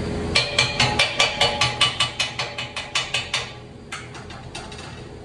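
A fast, even run of sharp mechanical clicks, about six a second, that fades away after about three seconds, followed by a few scattered clicks.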